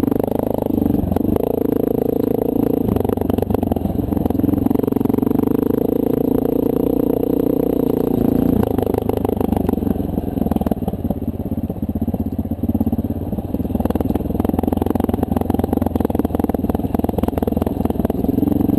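Honda CRF230L's single-cylinder four-stroke engine running under steady throttle for about eight seconds, then easing off to a lower, less even note, with the bike rattling over a rough dirt trail.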